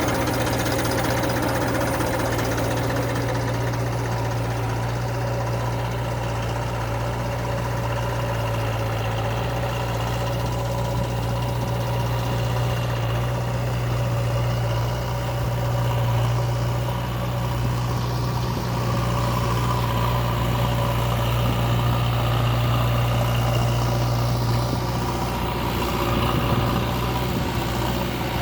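JCB 3DX Ecoxcellence backhoe loader's four-cylinder diesel engine running at a steady, even speed.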